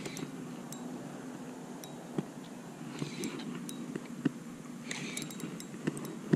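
Spinning reel on a fishing rod being wound and handled: small irregular clicks and ticks from the reel and rod.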